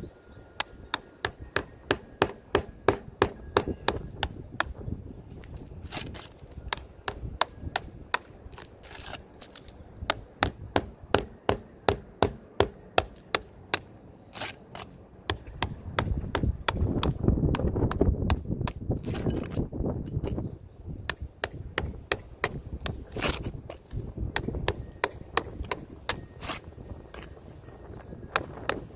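Hammer striking in quick runs of sharp blows, about three or four a second, as old asphalt shingles are worked loose on a roof. Partway through there is a louder stretch of low rumbling between the blows.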